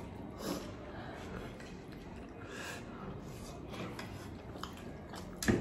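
A person eating noodles, heard faintly: a few soft breathy sounds, and one sharp click near the end.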